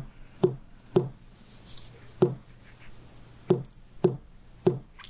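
Seven sharp knocks on a hard surface, spaced in groups of three, one and three: a ceremonial battery of knocks marking a stage of the initiation rite.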